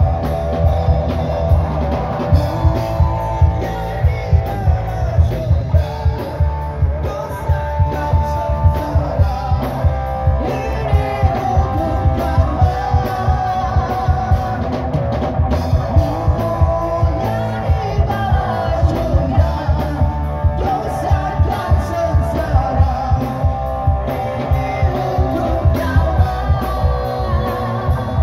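Live rock band playing: a male and a female singer over electric guitars and a drum kit, with a steady beat.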